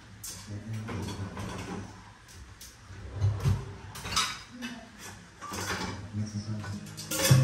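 Dishwasher rack sliding out and stainless steel pots and dishes clinking as they are unloaded, in several separate clatters.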